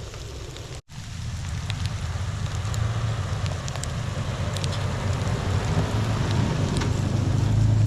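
A vehicle's engine running with a steady low rumble that builds louder, under a hiss with scattered small ticks. It starts right after a cut about a second in.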